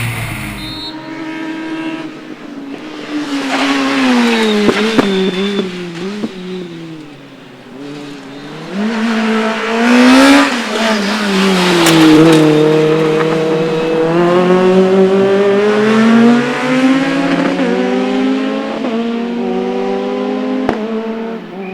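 Fiat Punto rally kit car's engine revving hard, its pitch climbing and falling back again and again as the car accelerates, shifts gear and slows. A loud noisy burst comes about ten seconds in, and it is at its loudest around ten to twelve seconds.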